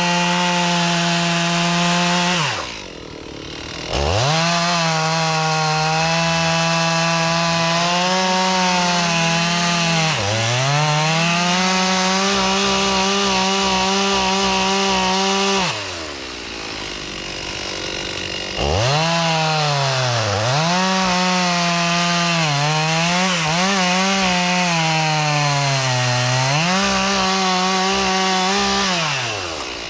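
Two-stroke chainsaw cutting at full throttle. Its high steady pitch sags several times as the chain bogs down in the wood. Twice it is let back to idle and then revved up again.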